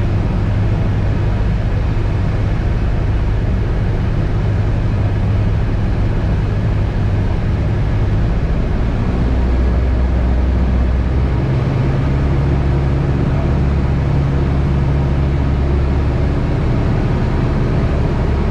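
Cockpit drone of a Piper Cherokee 140's four-cylinder Lycoming engine and propeller in flight, loud and steady. Its low hum changes pitch about halfway through.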